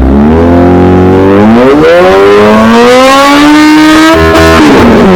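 Kawasaki Z H2's supercharged inline-four through an Orion aftermarket exhaust with the catalytic converter removed, revving up steadily for about four seconds. It stutters briefly at the top, bouncing off the rev limiter around 10,000 rpm, then drops back.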